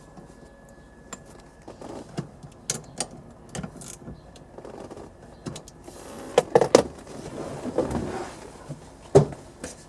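Scattered metal clicks and knocks of screws and a hand tool being handled while the screws of an NRG steering-wheel quick-release hub are fitted. The loudest clicks come in a quick cluster about six and a half seconds in, with a single sharp knock near the end.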